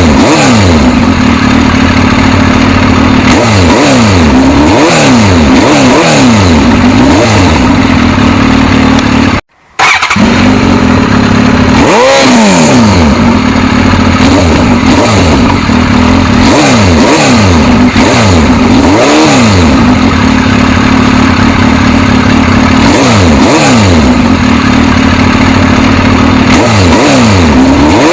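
Suzuki GSX-S1000's inline-four engine running loud, its pitch repeatedly rising and falling as it revs. The sound cuts out for a split second about nine seconds in.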